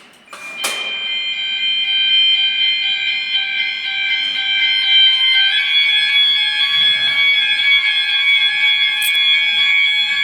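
Clicks in the first second, then a Gent fire alarm system's sounder comes on with a steady ring of several tones and keeps sounding loudly. It is set off by pressing the manual break-glass call point in a test.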